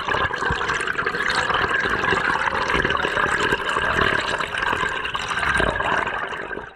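Underwater bubbling: a stream of air bubbles rushing and gurgling past the camera housing, fading and cutting off near the end.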